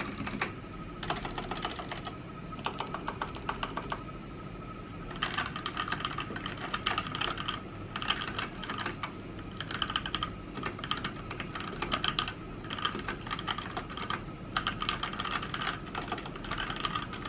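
Typing on a 1STPLAYER Lang MK8 mechanical keyboard with silent yellow Gateron switches, making muted key clacks. The typing comes in short bursts for the first four seconds, then turns fast and near-continuous with brief pauses.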